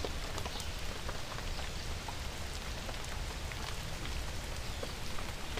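Steady rain falling, with scattered close drops ticking as they strike nearby surfaces.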